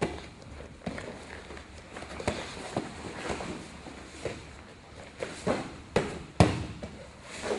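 Two jiu-jitsu players in gis grappling on foam mats during a side-control escape: cloth rustling and a string of sharp slaps and thumps of hands, feet and bodies on the mat, the loudest about six and a half seconds in.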